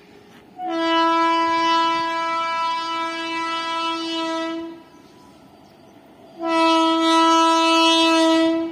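Indian Railways locomotive horn sounding two long, loud blasts at a steady pitch, the first about four seconds long and the second about two seconds, a second and a half apart.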